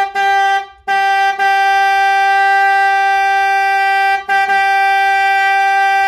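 Car horn honking: a few short honks, then a long held blast of about three seconds, a brief break, and another long blast.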